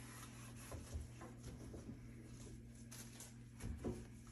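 Faint rubbing and light knocks of a cloth wiping down a microwave door, over a low steady hum.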